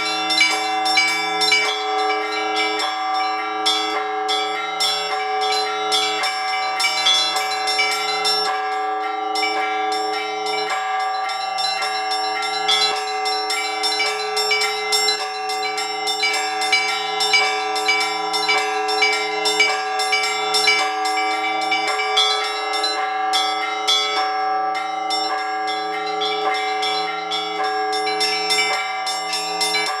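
Orthodox church bells rung together in a full peal. Small bells strike rapidly over the sustained ringing of the larger bells, and a lower bell sounds about once a second.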